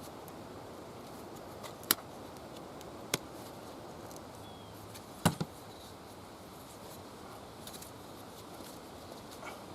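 Steady low rushing background noise, like wind, broken by three sharp clicks or snaps: one about two seconds in, one about three seconds in, and a louder double snap about five seconds in.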